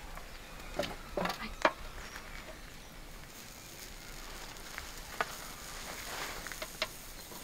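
Chicken kebabs on metal skewers starting to sizzle over hot charcoal on a grill, a faint hiss that thickens a little past the middle. A few sharp clicks come from the metal skewers being set down on the grill's rim.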